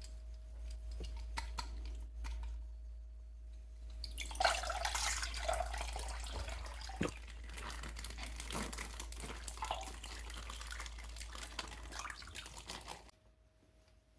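Water dripping and clicking, then pouring and splashing from about four seconds in, cutting off suddenly near the end.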